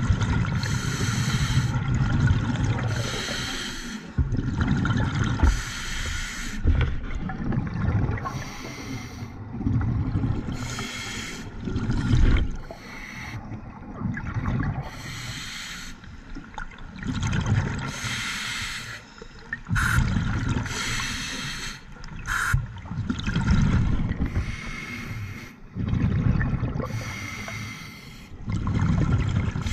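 Scuba diver breathing through a regulator underwater: short hissing inhalations roughly every two to three seconds, alternating with low bubbling bursts of exhaled air.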